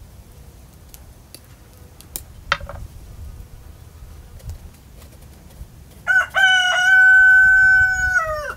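A rooster crowing once, starting about six seconds in: a few short broken notes run into one long held call that drops in pitch as it ends.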